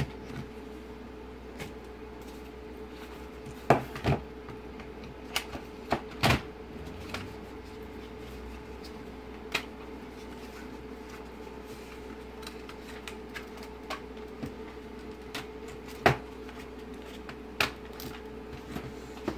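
Irregular sharp plastic clicks and knocks as a car instrument cluster's dial face and plastic housing are handled and pressed together, over a faint steady hum.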